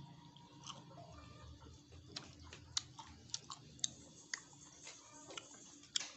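A person chewing and biting cooked caterpillar pupae off a skewer, with irregular faint crisp clicks from the mouth.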